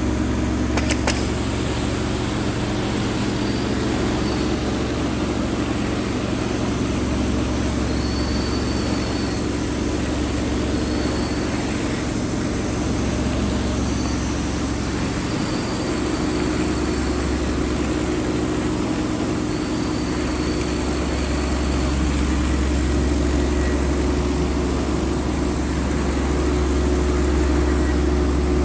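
Truck-mounted steam-cleaning machine's engine running steadily, a constant low drone with an even hiss over it.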